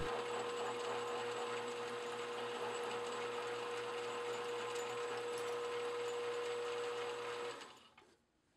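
Mini lathe running steadily, with a constant motor whine, while it takes the last parting cut off the top of an aluminum cone. It spins down and stops about seven and a half seconds in.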